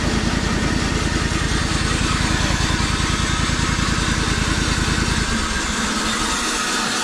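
Sawmill engine running at idle with a rapid, even beat; about five seconds in the low beat stops, leaving a steady hiss-like noise.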